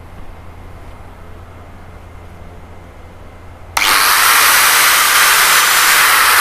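Ingco AG710382 electric angle grinder with a 4-inch velcro sanding pad switched on about four seconds in, starting abruptly and running at full speed with a loud, steady high-pitched whine.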